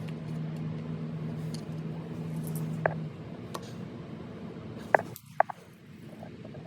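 Small metal hardware and tools clicking and clinking during hand assembly of a small engine: a few sharp clicks, the two loudest close together about five seconds in, over a steady low hum that stops about three seconds in.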